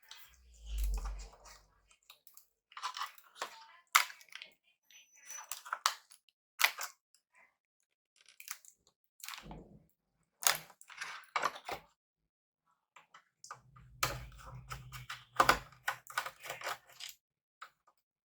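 Scattered clicks, taps and light knocks of plastic and metal laptop parts being handled and set down during disassembly, with a dull thump about a second in.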